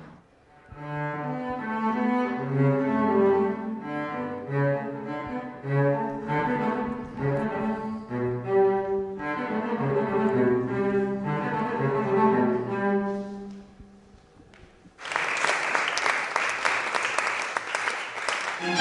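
A cello playing a melodic passage, one bowed note after another. It stops about 14 seconds in, and near the end an audience breaks into applause.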